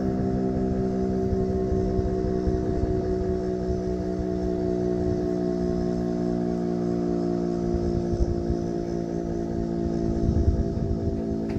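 Federal Signal RSH-10 Thunderbeam outdoor warning siren sounding a steady chord of several tones, its pitch sagging very slightly.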